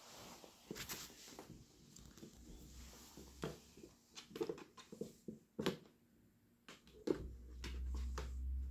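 Scattered soft knocks and scrapes from a cardboard popcorn bucket and a kitten's paws on a parquet floor as the kitten pushes at the box, with a low rumble in the last couple of seconds.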